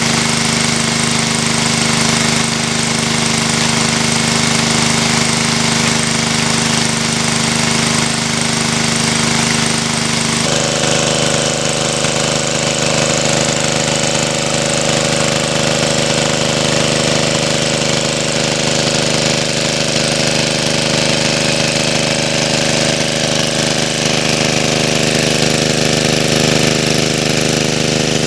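Engine-driven water pump running steadily at a constant speed while water gushes from its discharge hose. Its tone shifts about ten seconds in.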